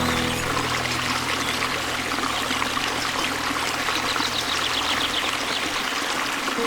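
Steady rush of flowing water with small birds chirping in quick runs of notes, busiest about four to five seconds in. A low held music note sits underneath and fades out about six seconds in.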